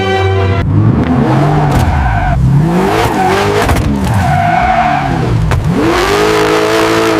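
Car engine revving up and down again and again, with tyres squealing and skidding. A burst of music cuts off just before it begins.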